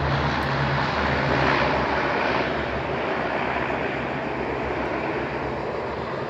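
Propeller engines of an amphibious firefighting plane droning as it flies low past, swelling about two seconds in and then fading steadily as it moves away.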